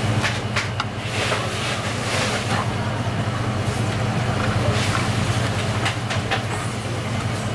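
Steady low mechanical hum, like a kitchen machine or fan, with scattered light taps and knocks as fish fillets and a knife are handled on a plastic cutting board.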